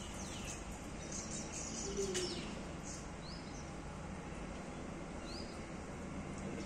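A few short, high bird chirps over steady low outdoor background noise.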